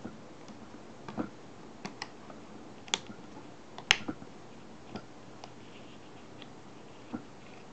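Scattered small clicks and taps from gloved hands handling a Nikon F2 camera body with an MF-11 data back. They come at irregular intervals, and the sharpest two are about three and four seconds in.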